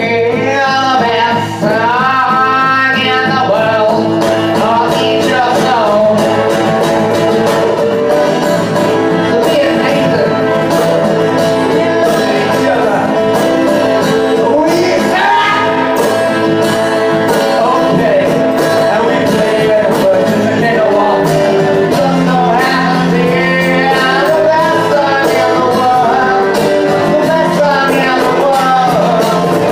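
A small acoustic band plays a song live: piano accordion, acoustic and electric guitars and a cajon keeping the beat, with a voice singing over them.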